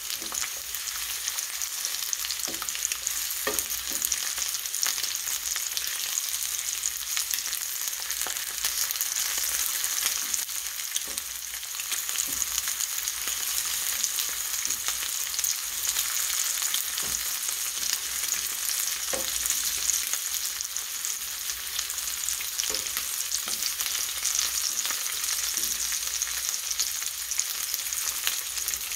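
Pork tocino sizzling and crackling steadily in hot oil in a skillet, with a few light clicks of a spatula as the slices are turned.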